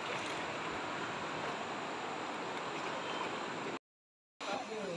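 Steady rush of fast-moving river water against the boat. It cuts out for a moment near the end, and a quieter stretch of water follows.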